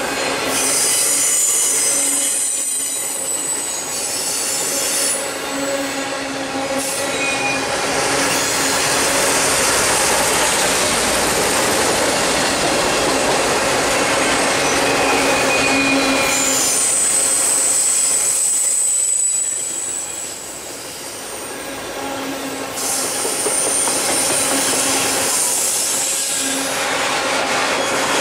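Loaded auto-rack freight cars rolling past close by: a steady loud rumble and rattle of steel wheels on rail, with high-pitched wheel squeals coming and going several times.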